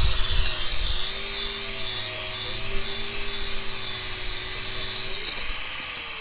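Electric power tool running with a steady whine, then winding down about five seconds in, its pitch falling as it slows.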